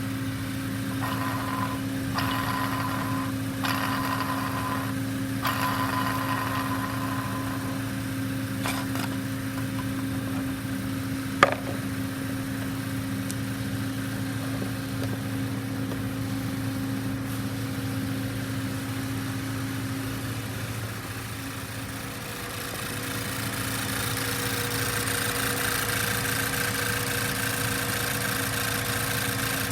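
Audi A3 engine idling steadily, with an on-off higher whine in the first few seconds and one sharp click about eleven seconds in. Around two-thirds of the way through the engine note dips, then settles at a slightly different pitch.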